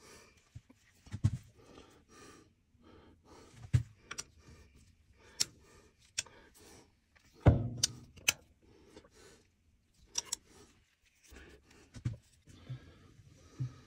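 Irregular metal clinks, clicks and knocks of tools and parts being handled on a milling machine's table around the rotary table's hold-down bolts. The loudest is a heavy knock about halfway through.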